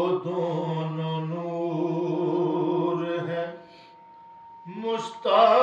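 A solo voice sings a line of an Urdu devotional salam in a slow chant, holding one long wavering note. The note breaks off about three and a half seconds in, and after a short pause with only a faint steady tone, the next phrase starts louder near the end.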